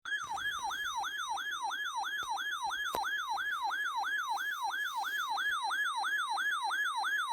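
Weather alert radio sounding its electronic siren alert, which signals that a new warning is being received. It begins abruptly and repeats a rapid yelp, each cycle sweeping down in pitch and snapping back up, about three times a second.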